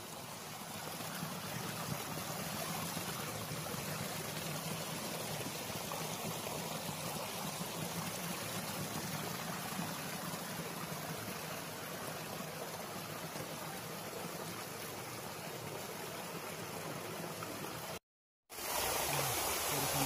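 Steady rush of flowing stream water, an even wash of noise with no distinct events; it drops out for about half a second near the end and comes back a little brighter.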